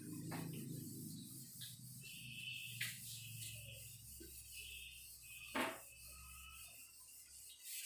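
Quiet room tone with a low hum, which fades out near the end, and two soft clicks, the louder one about five and a half seconds in.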